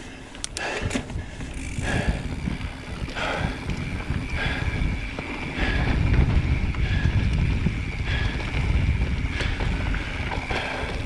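Mountain bike rolling along a dirt forest singletrack, with tyre and frame rattle under a low wind rumble on the camera microphone. It gets louder about six seconds in.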